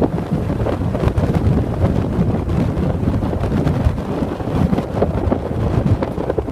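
Strong gusty wind, 10 to 15 m/s or more, the back-side wind after a typhoon has passed, buffeting the microphone. It is a low, rumbling rush that swells and eases from gust to gust.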